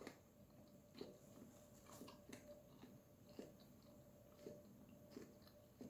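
Faint chewing over near-silent room tone: a handful of soft, irregular mouth clicks, roughly one a second.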